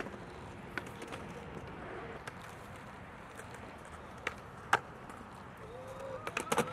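Skateboards rolling on concrete, with sharp wooden clacks of tails snapping and boards landing: one loud clack past the middle and a quick run of several clacks near the end.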